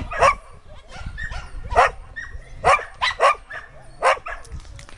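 A dog barking repeatedly in a string of short, sharp barks at uneven intervals, some louder and some fainter.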